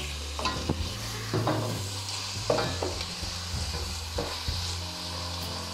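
Pork steaks frying in hot melted lard in an enamelled pan, a steady sizzle. Through it come several short scrapes and knocks of a utensil against the pan as the steaks are turned to sear.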